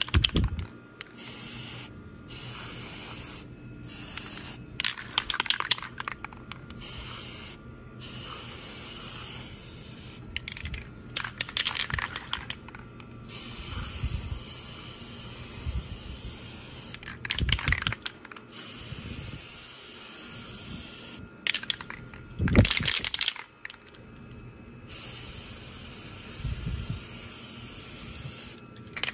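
Aerosol spray-paint can spraying in a series of short hissing bursts with brief pauses between them, as thin passes of paint go onto steel rifle magazines. A few louder rushes of noise stand out along the way, the strongest a little past the middle.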